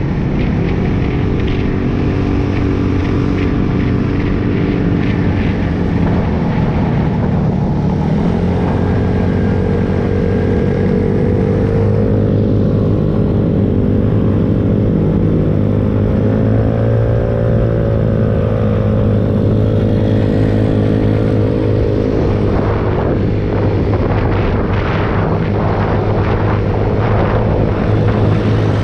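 Several small-displacement mini bike and scooter engines running together. Their pitch rises and falls gently as the riders ease on and off the throttle.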